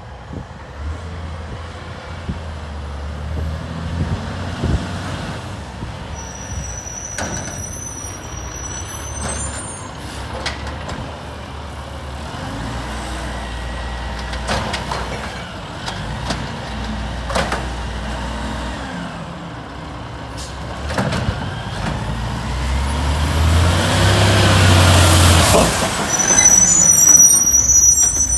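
Automated side-loader garbage truck's diesel engine running as it creeps up the street, with clunks as its arm lifts and dumps a cart and a few high squeals. It grows loud near the end as the truck pulls up close.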